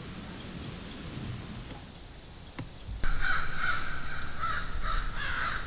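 Crows cawing in a rapid, harsh series that starts suddenly about three seconds in. Before that, quiet woods with a few faint high bird whistles and a single click.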